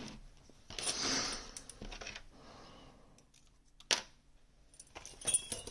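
Light metallic handling sounds from a Gerda Exxo lock and its picking tools: a soft scrape about a second in, one sharp click near four seconds, and a few small ticks near the end.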